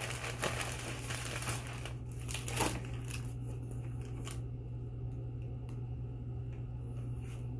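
Plastic mailer bag crinkling and rustling as it is handled and opened, with a short louder crackle about two and a half seconds in; the crinkling dies down after about four seconds.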